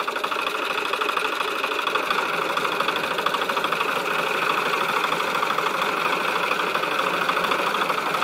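Champ farm tractor's diesel engine running under load as the mired tractor drives to climb out of the mud, with a fast, even firing pulse. It gets a little louder about two seconds in.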